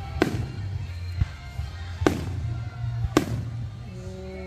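Aerial fireworks bursting: four sharp bangs about a second apart, three of them loud, over music playing with the show.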